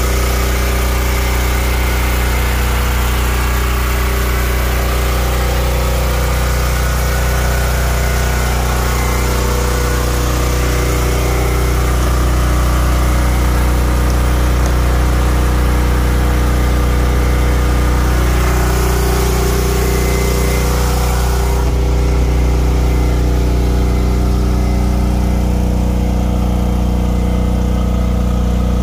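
Ridgid portable generator engine running steadily under load, powering the off-grid inverter and charging the batteries. Its sound turns duller about two-thirds of the way through, heard from outside the closed shed.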